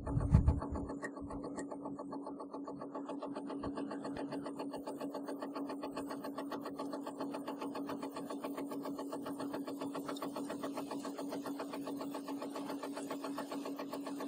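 Seed metering unit of a KLEN vegetable seeder running on small seeds: a steady motor hum with a fast, even ticking from the turning metering disc. A few low knocks come in the first second.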